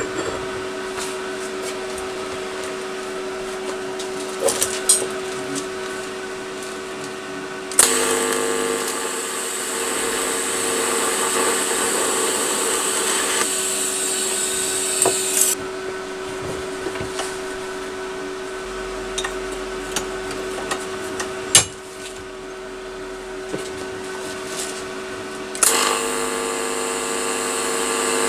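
Metalworking on a steel exhaust baffle: a steady machine hum with a few sharp taps. There are two longer, louder stretches of hissing power-tool noise, the first beginning about eight seconds in and lasting about eight seconds, the second starting near the end.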